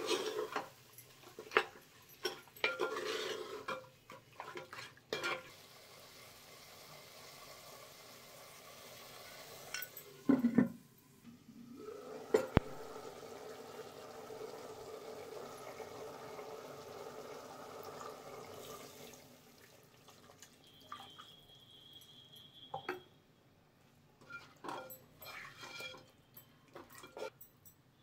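Chicken pieces mixed with spices by hand in a clay pot, with wet squelches and knocks against the clay. Then the chicken curry simmers in the clay pot with a steady bubbling hiss. Near the end a wooden spoon stirs and knocks in the pot.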